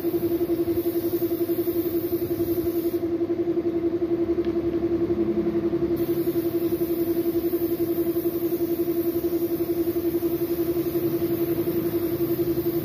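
Air compressor running with a steady, rapidly pulsing hum, while a gravity-feed paint spray gun hisses as it sprays a motorcycle wheel rim. The spray hiss stops for a few seconds partway through, then resumes.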